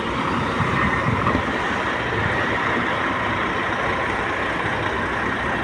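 Engine of a new Sany tractor head running steadily close by.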